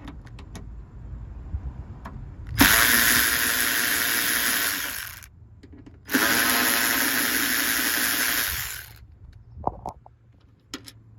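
Power drill-driver with a T30 Torx bit backing out the screws that hold a car door lock actuator. It runs twice, for about two and then three seconds, each time winding down as it stops. A few light clicks follow.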